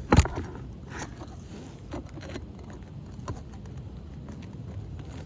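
A tool working under asphalt roof shingles to loosen their nails: a sharp knock just after the start, then a few lighter taps and scrapes.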